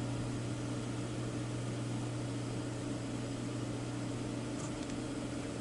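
Steady low electrical or mechanical hum with an even hiss, unchanging throughout, like a fan or transformer running.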